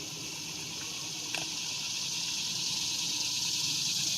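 Steady, high-pitched droning chorus of insects in a marsh, slowly growing louder, with one faint click about a second in.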